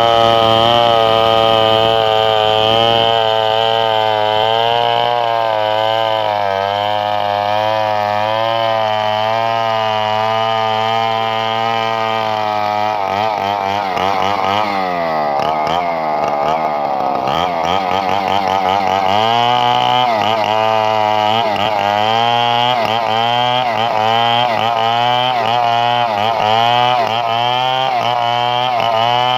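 Chainsaw engine running loud and continuously, its pitch wavering up and down; about halfway through the engine speed drops sharply and climbs back a few seconds later.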